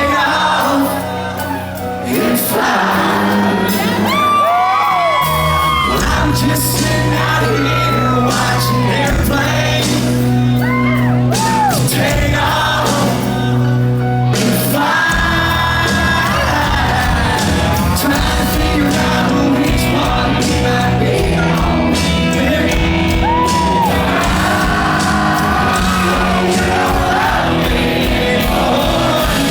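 Live country band playing in a large hall with a male lead vocalist singing, as heard from within the audience.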